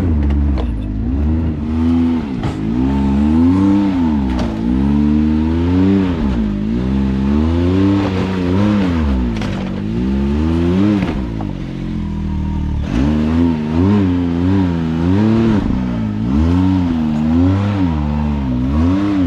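Side-by-side UTV engine revved in repeated throttle bursts as the machine works its way up a rough trail section, the pitch rising and falling every second or two.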